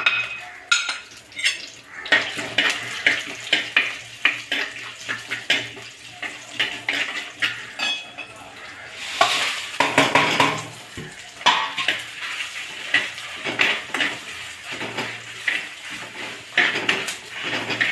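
A metal utensil scraping and clinking against a pan while stirring whole spices as they dry-roast without oil. The strokes come in quick irregular clicks, with a louder, denser stretch around nine to ten seconds in.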